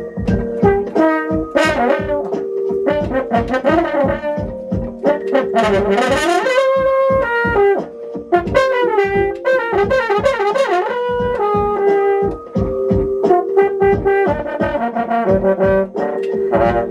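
French horn played over a backing track with a steady beat, the horn holding notes and sliding up and down between them, with a rising glide about six seconds in.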